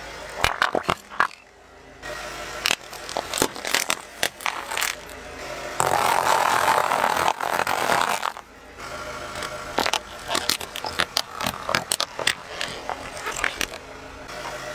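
A car tyre rolling over and crushing rows of small objects (toothpaste tubes, crunchy waffle-shaped snacks, pots of slime) with a run of sharp cracks, pops and crunches. A dense stretch of crunching starts about six seconds in.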